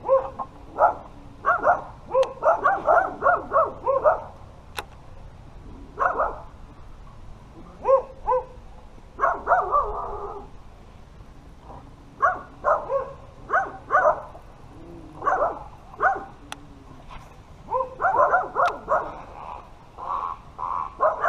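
An animal calling again and again in short bursts of pitched barks or honks, grouped in clusters with brief pauses between them.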